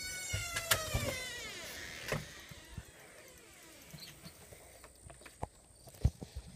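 A door hinge creaking as the door swings open, one long squeak slowly falling in pitch that fades about a second and a half in. A sharp knock comes just after two seconds, then scattered light clicks and taps.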